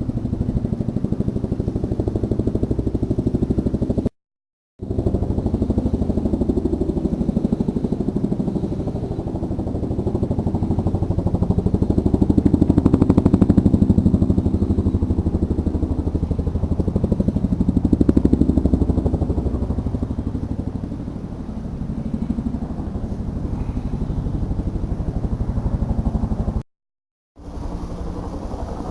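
An engine running steadily with a rapid low pulse, swelling louder twice, broken by two brief cuts to silence.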